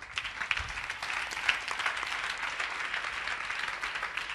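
Seated audience applauding, many hands clapping at once. It starts abruptly and goes on steadily.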